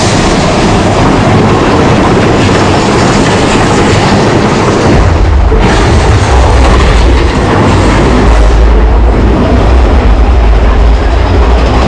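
Big Thunder Mountain Railroad mine-train roller coaster rattling along its track, heard from inside the moving car. The noise is loud and continuous, with a heavy low rumble that grows stronger about five seconds in.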